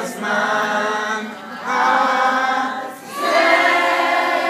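A group of people singing together, three long phrases with held notes and short breaks between them.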